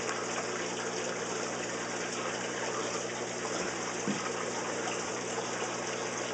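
Water running and splashing steadily into saltwater aquarium tanks from the system's plumbing, over a steady low hum.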